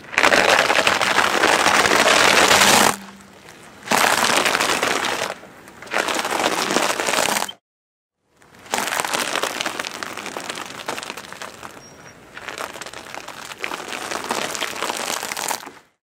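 Crackling and crunching of a large cardboard box of chocolate candy being crushed under a car tyre. It comes in several separate stretches that start and stop abruptly.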